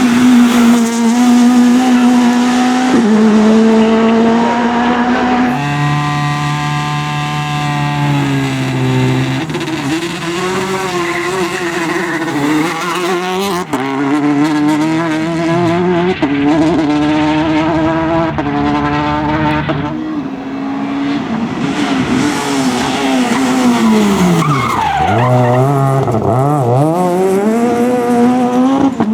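Rally car engines under hard acceleration, rising in pitch through each gear and dropping at the shifts and under braking. The sound changes abruptly several times as it switches from one car to another.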